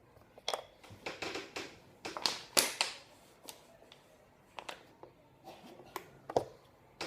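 Slime and a small plastic container being handled: irregular sticky clicks and crackles, busiest a couple of seconds in, as the slime is packed away and the container shut.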